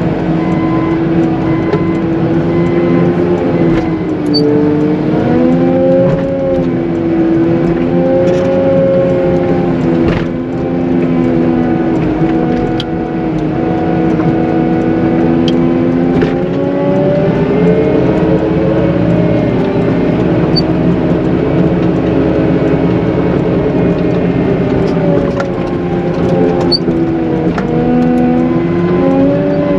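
Caterpillar 906M compact wheel loader's diesel engine running under load while pushing heavy wet slush, its pitch rising and falling several times as the machine is worked back and forth.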